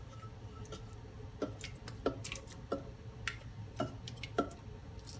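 Silicone spatula scraping thick cooked pudding out of a metal saucepan into a stainless steel mixing bowl: a string of light, irregular taps and wet squishes as the spatula knocks the pan and the custard drops.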